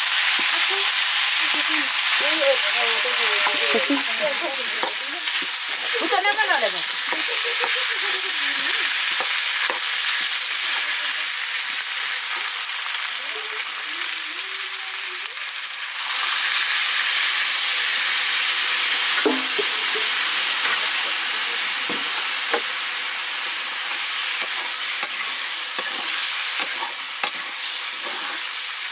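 Chopped squash sizzling and frying in hot oil in an iron wok, stirred with a metal ladle that scrapes and knocks against the pan. The sizzle steps up abruptly about halfway through.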